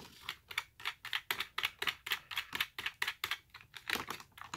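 Dyson DC41 vacuum's filter being twisted back into place, its plastic ratchet clicking several times a second in uneven runs, like a car's gas cap. The clicking is the sign that the filter is seating all the way.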